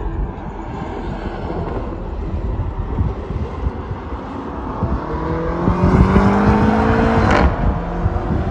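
Safety car's engine heard across the circuit, accelerating: its pitch climbs steadily for about two seconds from midway, then breaks off sharply near the end. A low rumble runs underneath throughout.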